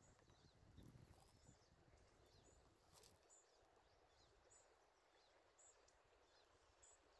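Near silence: faint room tone, with faint short high chirps about once a second.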